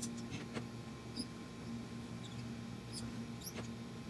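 Scattered light clicks and tiny high squeaks of plastic 3D-printer parts and belt being worked by hand while the belt is tightened, over a steady low hum.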